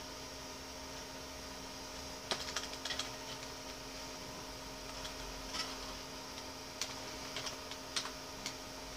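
Computer keyboard keys pressed during boot to call up the Windows 98 startup menu and choose Safe Mode: a quick cluster of clicks a little over two seconds in, then single clicks every second or so, over a steady low hum.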